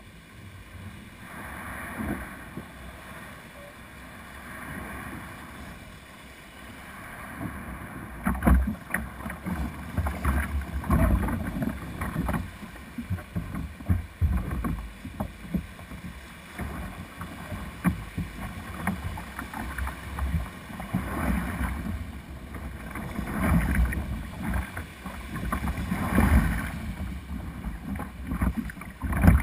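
Shallow surf washing and splashing around a plastic kayak as it is pulled out through small breaking waves, with water slapping the hull and wind buffeting the microphone. It grows louder and choppier about eight seconds in.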